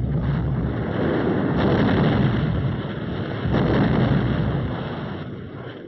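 Ammunition dump blowing up: a continuous low rumble of explosions. It swells again about one and a half seconds in and near four seconds, then fades toward the end.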